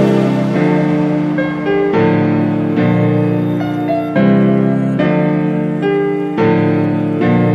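Background music: sustained chords that change about once a second.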